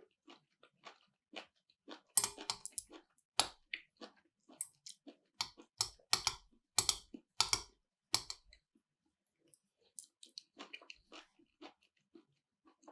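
Close-miked chewing of chuka salad: irregular crunches and wet mouth clicks, loudest and densest from about two to eight seconds in, then fainter.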